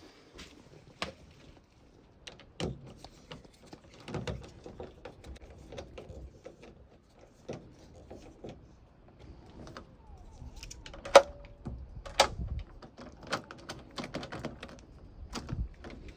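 Door lock hardware being fitted and worked: irregular clicks and knocks of metal parts, the two loudest about eleven and twelve seconds in.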